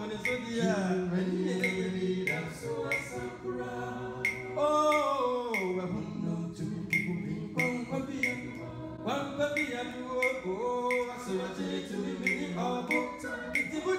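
Male a cappella group singing a gospel song in close harmony, several voices holding and gliding between notes, with a light tick about every two-thirds of a second keeping time.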